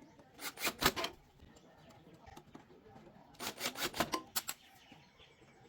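Two short bursts of scraping and knocking, about half a second in and again about three and a half seconds in, from something being handled or worked on.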